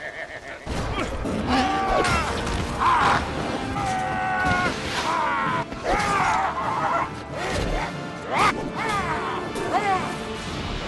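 A man's gruff shouts and grunts, short cries one after another with pitch bending up and down, over film music, with crashing impacts between them.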